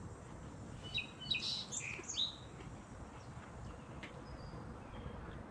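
A bird's brief burst of chirping song about a second in, a quick run of high sweeping notes over a faint outdoor background.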